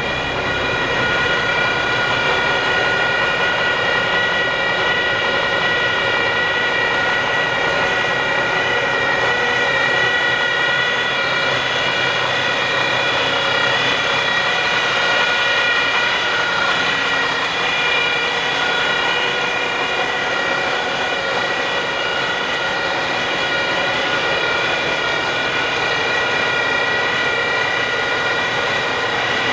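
Steady high-pitched whine with several even tones, typical of a dump truck's PTO-driven hydraulic hoist pump running with the bed up, over the running truck.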